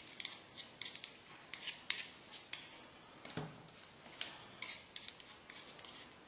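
Light, irregular metallic clicks and taps of a small screwdriver working grease onto a titanium clevis pin and towards the lever's pin hole, about two or three clicks a second. A single duller thump comes about three and a half seconds in.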